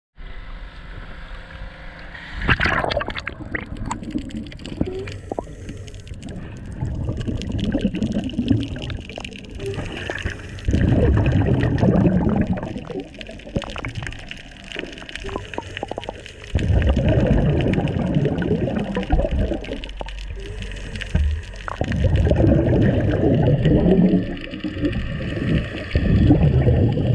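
Scuba diver's exhaled breath bubbling out of the regulator underwater: a loud gurgling rush of bubbles about every five seconds, with quieter water noise between.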